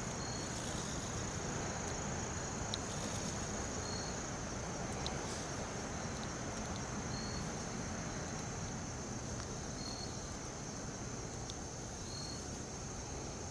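Steady high-pitched drone of insects, with a short, higher chirp-like note repeating every second or two over a soft, even hiss.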